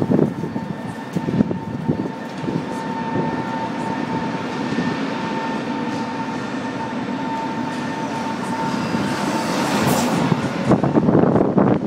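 A city tram running along street rails, heard from inside: a steady running noise with a thin steady whine and scattered clicks from the track. Near the end a louder rushing noise builds as a truck passes close alongside.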